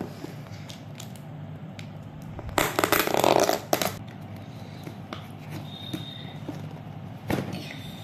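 Cardboard delivery box being torn open by hand. About two and a half seconds in comes a loud tearing rasp lasting about a second, with quieter rustling of the box around it and a single thump near the end.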